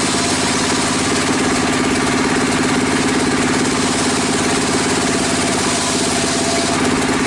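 Sawmill bench circular saw running steadily while a plank is fed through it: a loud, even mechanical drone with a constant whirring hiss above it.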